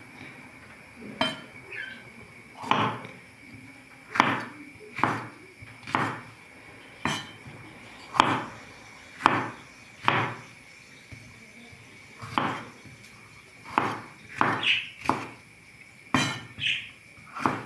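Repeated sharp knocks on a hard kitchen surface, irregular at roughly one a second, over a faint steady high tone.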